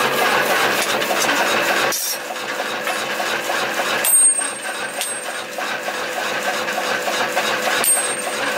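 Steady drone of the forge's electric blower running, dropping in level about two seconds in. A few hammer blows on hot steel at the anvil follow: the loudest comes about four seconds in and another near the end, both leaving a brief high ring.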